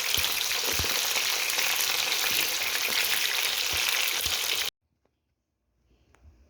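Food frying in hot oil: a steady sizzle with a few soft knocks, likely from stirring. It cuts off abruptly near the end, leaving only faint room sound.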